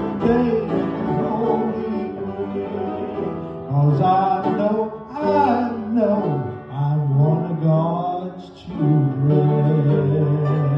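Fiddle and piano playing the closing bars of a Southern gospel song, with a voice singing the last line. It ends on a long held note.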